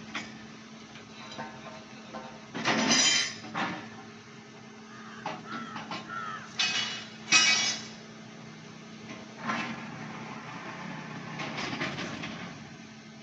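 Metal clanks and scraping during work on steel drill rods, with two loud noisy bursts about three and seven seconds in and smaller ones later, over a steady low hum.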